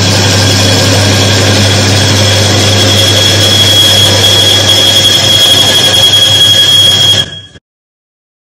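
Electric motor of a Timken-type friction tester running with a steady hum, and a high, steady screech of the loaded steel test parts growing louder: the lubricant film breaking down under load, the test counted as failed. The sound cuts off suddenly near the end.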